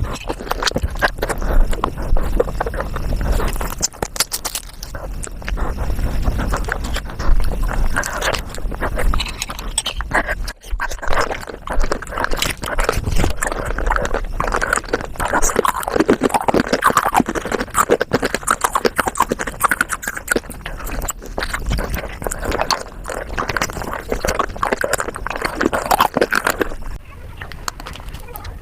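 Eating sounds played at five times speed: rapid crunching and chewing clicks, with high, chattering sped-up voice sounds mixed in.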